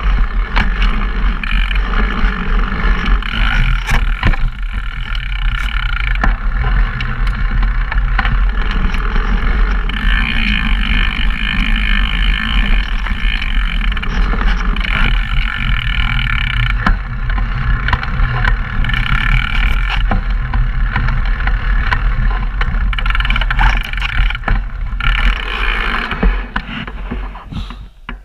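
Raw on-bike sound of a downhill mountain bike descending a dirt trail: tyres and frame clattering and rattling over rough ground, with a heavy rumble of wind on the action-camera microphones. The noise drops away near the end.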